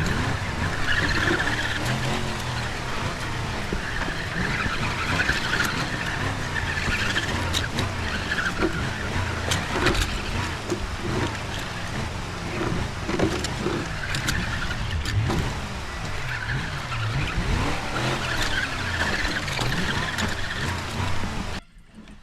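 Engine sound effect dubbed over an RC rock crawler's driving: a full-size truck engine running and revving in steps, with scattered clicks. It cuts off suddenly near the end.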